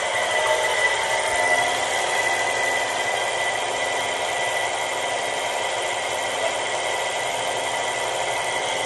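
Electric motor and belt-driven pump running steadily, with a steady high whine, pumping LPG into a gas cylinder.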